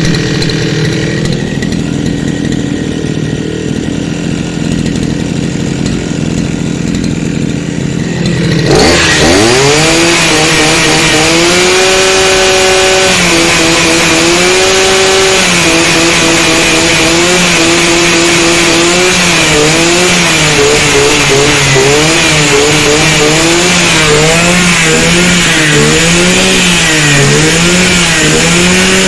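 Small two-stroke engine of an imported 43–52cc brush cutter idling, then revved up sharply about nine seconds in and held at high speed, the throttle worked up and down repeatedly toward the end. It is running after a decarbonising overhaul that cleared the carbon build-up blamed for its engine noise.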